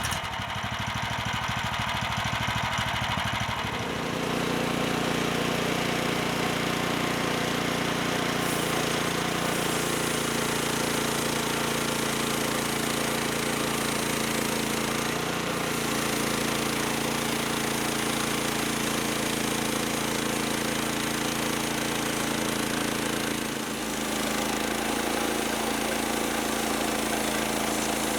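Bandsaw sawmill's engine running steadily, brought up to a higher, steady speed about four seconds in.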